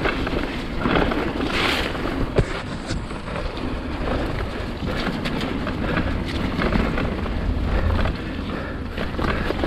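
Mountain bike descending a dirt trail, with wind buffeting the microphone. Under the wind the tyres and frame rumble steadily, with scattered knocks and rattles as the bike goes over bumps.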